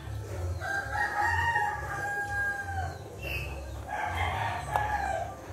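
A rooster crowing twice: one long crow in the first half, then a shorter one about four seconds in.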